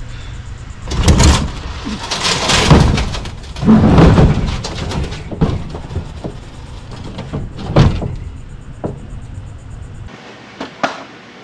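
A heavy metal appliance being shoved and handled in a pickup truck bed: loud scrapes and thuds, with a sharp knock near eight seconds. The sound drops to a few faint clicks after about ten seconds.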